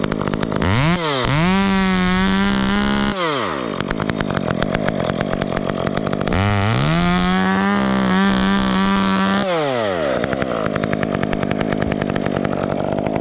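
Chainsaw making a cut on a limb up in a tree. It revs up to full throttle twice, each time held for about two and a half seconds, and drops back to a lower, pulsing engine note between the two revs and afterwards.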